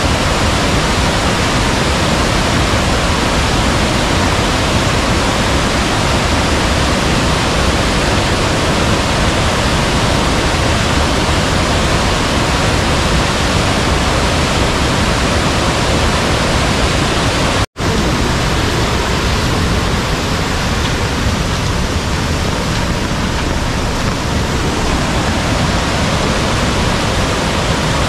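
Loud, steady rush of water from a mountain valley stream running high in heavy rain. It cuts out for an instant about 18 seconds in.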